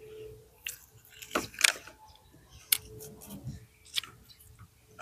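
Dry garden balsam (Impatiens balsamina) plants being handled for their seed: rustling with several sharp, crisp snaps and crackles, the loudest about a second and a half in.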